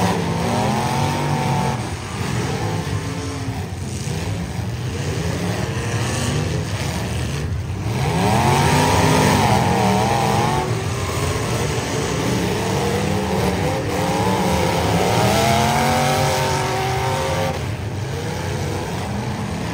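Several demolition derby cars' engines revving hard together as the cars push against one another, their pitches rising and falling and overlapping, loudest about eight seconds in.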